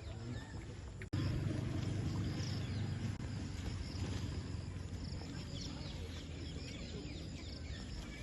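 Outdoor ambience: many small birds chirping over a steady low rumble, with a sudden cut about a second in after which the rumble is louder.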